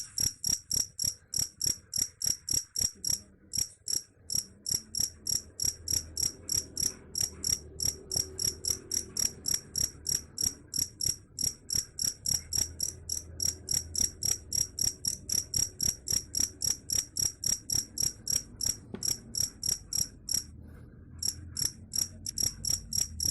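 Cricket chirping: a fast, even train of high-pitched chirps, about four a second, that stops briefly twice, about three seconds in and again near the end.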